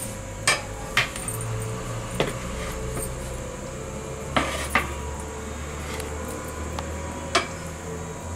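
A ladle stirring rice in a large metal cooking pot, knocking and scraping against the pot about six times at uneven intervals, over a steady low hum.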